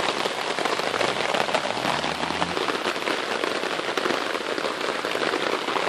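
Heavy rain falling on a tarp shelter, heard from beneath it as a steady, dense patter of drops.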